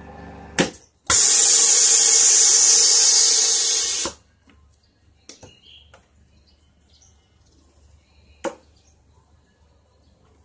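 Vacuum sealer's pump humming steadily, then a click as it stops, followed by a loud hiss of air for about three seconds that fades and cuts off, and a single click near the end.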